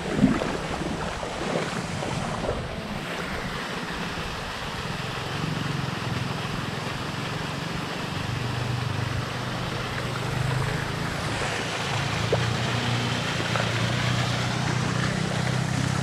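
Shallow river water rushing and splashing around the legs of someone wading across, with a steady low rumble of wind on the microphone.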